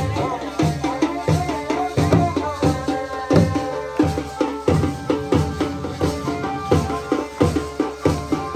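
Live Garhwali folk dance music: a dhol drum beating a steady, repeating rhythm under the held notes of a keyboard melody.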